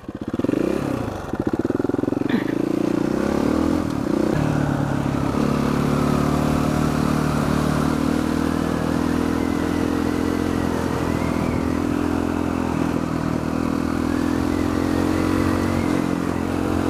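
KTM 400 SXC single-cylinder dirt bike engine pulling away, rising in pitch a few times through the first four seconds, then running at a steady cruising speed, with wind rushing over the microphone.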